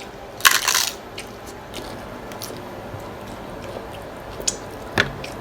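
A crunchy bite into a crisp taco shell about half a second in, followed by quieter chewing with small mouth clicks and one sharp click near the end.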